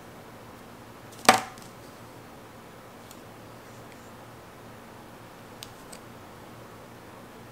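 One sharp click about a second in, then two faint ticks near the end, over a low steady hiss: crafting tools handling a planner sticker, with metal tweezers placing it on the page.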